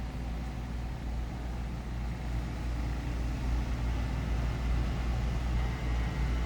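Home-built hot-wire foam-cutting CNC machine running its cut: a steady low hum from the stepper motors driving the gantry.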